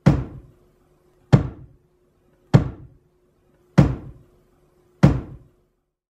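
Metal plate of a spiked glove-testing rig slamming down onto rows of steel spikes five times, about one and a quarter seconds apart; each strike is sharp and rings briefly. A faint steady hum runs underneath.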